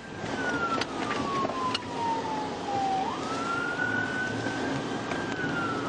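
Police cruiser siren in wail mode. The tone falls slowly for about three seconds, sweeps quickly back up, holds, then starts falling again near the end. Steady road and engine noise runs underneath, with a few faint clicks.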